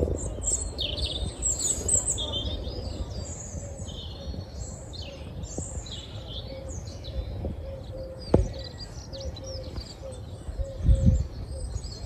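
Songbirds singing, a steady stream of high, varied phrases over a low background rumble and a steady hum. A sharp click comes about eight seconds in, and a thump near the end.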